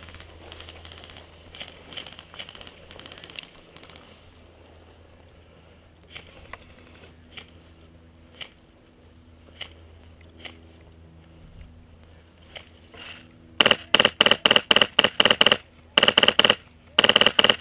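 Airsoft rifle, a PolarStar high-pressure-air build, firing rapid strings of sharp cracks in three bursts, starting about three-quarters of the way through.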